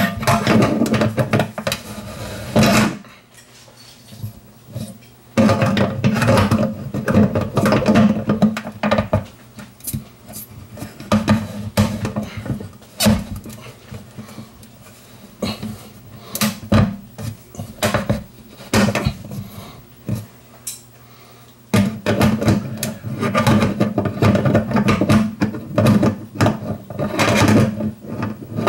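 Metal clinks and knocks of plumber's pliers working the locking nut of a kitchen sink drain strainer from below a stainless steel sink, tightening it to seal the drain. The clatter comes in irregular bouts with short pauses between them.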